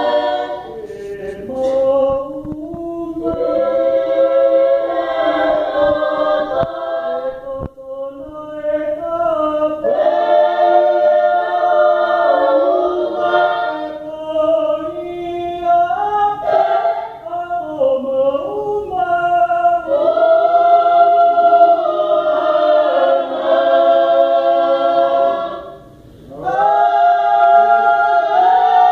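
Choir singing unaccompanied in long, held chords, with short breaks between phrases about 8 seconds and 26 seconds in.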